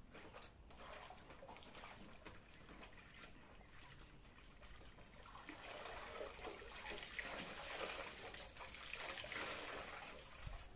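A wet cloth swished in a metal basin of water, then lifted and squeezed so water pours and trickles back into the basin, louder from about halfway through.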